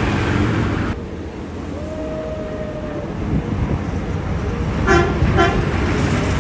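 Two short toots of a vehicle horn, about half a second apart, over a steady low rumble of street traffic.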